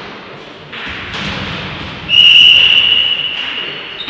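A referee's whistle blown once: a loud, steady, shrill blast starting about two seconds in and lasting over a second. Before it, a thud of a ball or body just under a second in, with the echo of a large sports hall.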